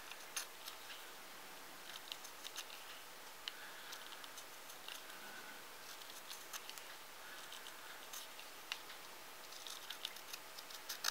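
A knife shaving wood off a triangular pencil: faint, irregular short scraping cuts with small ticks, a little more frequent near the end.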